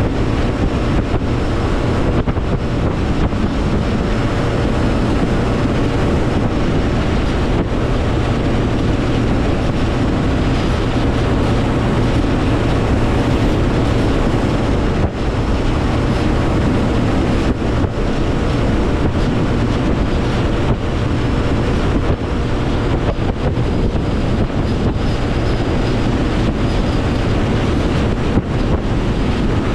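Mercury Pro XS 200 outboard pushing a Nitro Z19 bass boat at a steady speed through rough water, with heavy wind buffeting on the microphone and occasional knocks of the hull against the chop.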